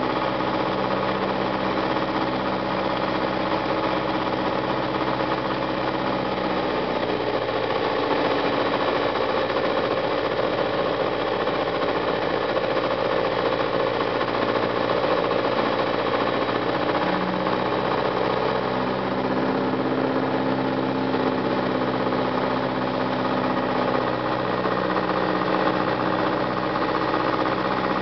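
Piper Cherokee 140's four-cylinder Lycoming engine and propeller running steadily, heard from inside the cabin on approach to landing. The engine note changes about seven seconds in and again around eighteen seconds in.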